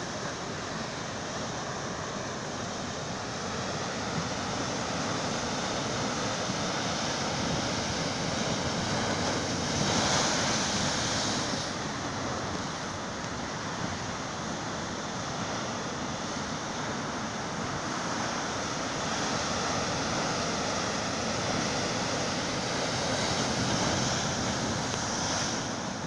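Heavy sea surf breaking over rocks: a continuous wash of white water that swells louder about ten seconds in and again near the end.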